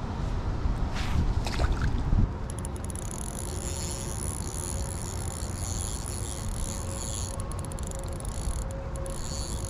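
Wind buffeting the microphone, with a few sharp clicks of handling, for about the first two seconds. It drops away suddenly to steady outdoor ambience with a high, thin chirring of insects.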